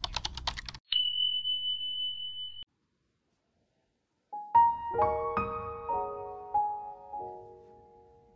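Soft background piano music starts about four seconds in, a few gentle notes ringing and slowly fading. Before it come a brief burst of noise and a steady high beep lasting about a second and a half, then a short silence.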